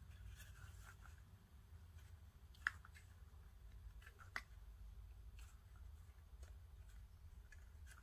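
Faint rubbing and rustling of 550 paracord being pulled and tightened into a knot by hand, with two sharp ticks about a second and a half apart near the middle.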